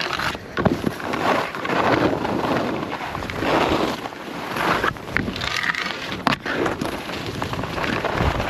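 Skis scraping and carving over snow in swells about a second apart, with wind buffeting the microphone and a few sharp knocks.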